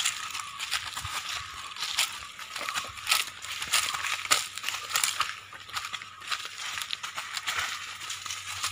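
Footsteps crunching and rustling through dry fallen leaves on a forest floor, in irregular crackly steps.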